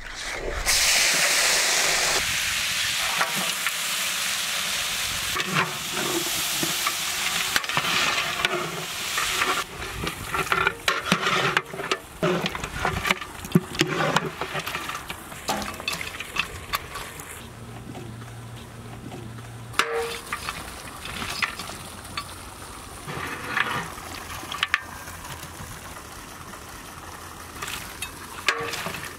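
Raw mutton pieces hitting hot ghee in a large pot and sizzling, loudest in the first two seconds. Then the meat is stirred with a large metal perforated ladle: steady frying sizzle with repeated scrapes and clinks of the ladle against the pot.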